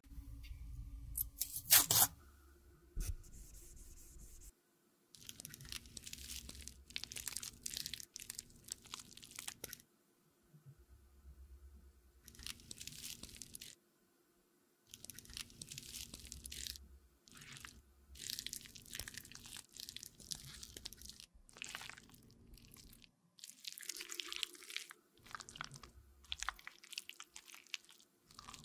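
A single-edge razor blade scraping and slicing lipstick, including scraping it off a small round metal pan, in repeated short scraping strokes grouped in runs of a second or two with short pauses between. Two sharp clicks about two seconds in are the loudest sounds.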